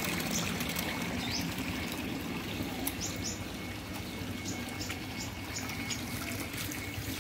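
Water running and trickling into a recirculating eel tank through its PVC pipes, steady throughout. A few short, high bird chirps come in the middle.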